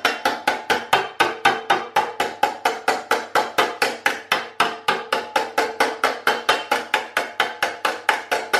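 Panel hammer tapping the edge of a sheet-metal panel over a steel block, folding a right-angled lip into it. It makes a rapid, even run of metallic taps, about four or five a second, with a ringing tone behind them.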